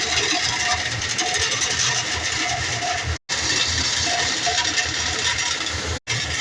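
Air duct cleaning equipment running: a steady, loud rush of air with a fine rapid rattle, as a back snake works through the ductwork toward the vacuum. The sound breaks off abruptly twice.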